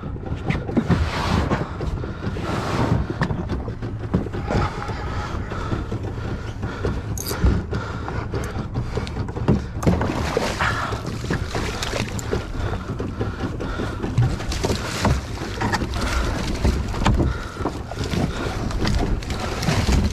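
Wind buffeting the microphone over water lapping and sloshing against a small open fishing boat, with a busy crackle of small splashes. Near the end a hooked mahi-mahi thrashes and splashes at the surface beside the hull.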